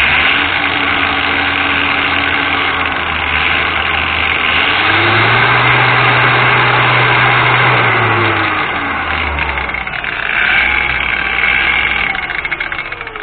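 Cordless 18-volt angle grinder, a Makita-style knockoff, running free with no load. It switches up to a higher speed about five seconds in, drops back to the lower speed near nine seconds, and spins down near the end.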